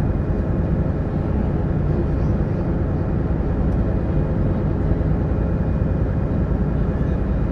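Sightseeing boat's engine running steadily under way, a constant low drone with the rush of wind and water over it.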